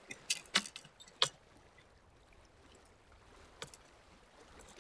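A handful of sharp knocks and clicks as fishing gear is handled in a kayak, most of them close together early on and one more a few seconds later, over faint water sounds.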